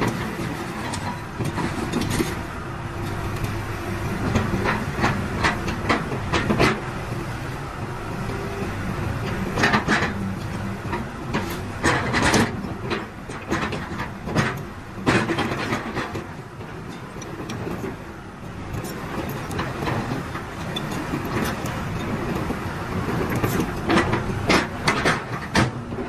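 Hitachi ZX200-3 excavator's diesel engine running steadily while the boom, arm and bucket are worked hydraulically, with several bunches of sharp metallic clanks and knocks, the loudest around halfway through and near the end.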